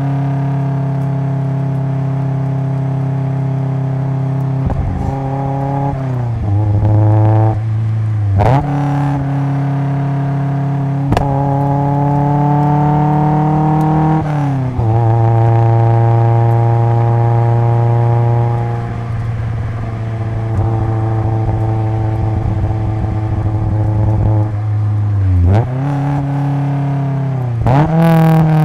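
Exhaust note of a 1983 Toyota AE86 Sprinter Trueno, running an AE111 20-valve 4A-GE swap with individual throttle bodies through an RS Harada single-tail muffler, heard at the rear bumper while driving. Long steady cruising stretches alternate with short climbs in pitch under throttle and sharp drops at gear changes, about 8 and 14 seconds in. A couple of brief sharp cracks come around 8 and 11 seconds in.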